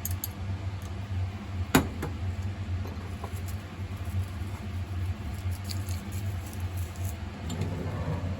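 Light taps and small ticks of whitebait and sliced green onions being added to the pasta, with one sharp click about two seconds in and a soft rustle near the end, over a steady low hum.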